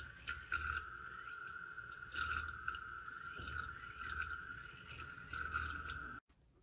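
Water whirling in a deep vortex in a glass on a magnetic stirrer, gurgling and splashing in irregular bursts as air is drawn down to the spinning magnet, over a steady high whine. It stops abruptly near the end.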